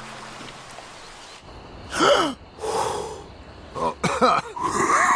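Cartoon pigeon character gasping and wheezing in a run of short, loud breaths, starting about a second and a half in: the sound of being brought back to life.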